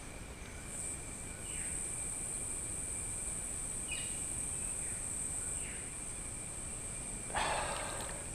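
Insect chorus: a steady high-pitched drone that swells in about a second in and holds, with a few faint chirps. A brief splash of water near the end.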